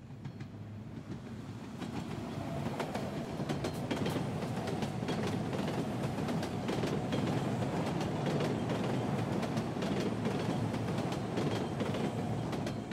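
Train passing on rails: a steady rumble that swells over the first few seconds and then holds, with many sharp clicks from the wheels and cars.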